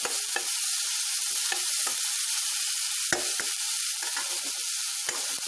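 Chopped cluster beans sizzling in a stainless steel pan while a steel spoon stirs them, scraping and clinking against the pan, with the sharpest clink about three seconds in.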